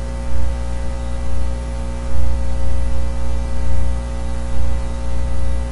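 Steady electrical hum with hiss from the recording setup, a strong low drone with higher steady overtones, rising and falling slightly in loudness.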